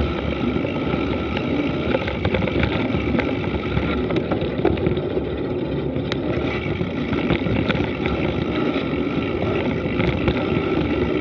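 Mountain bike rolling down a dirt road: steady tyre rumble on the dirt and wind on the camera microphone, with frequent small rattles and clicks from the bike.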